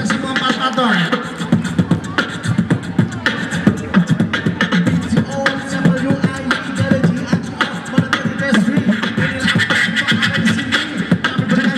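Beatbox crew performing live through microphones and a PA: rhythmic vocal percussion from several mouths at once, with a pitched vocal line carried over the beat.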